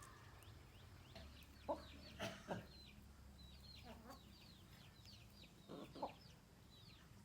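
Chickens clucking a few times, quietly, over a constant run of short, high, falling chirps.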